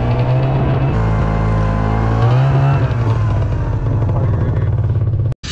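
Snowmobile engine running loud just after being started, rising in pitch in a short rev about two seconds in and settling back. It cuts off abruptly near the end.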